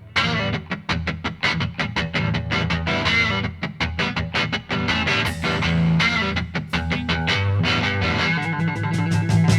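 Background music: a rock track led by distorted electric guitar with a steady beat.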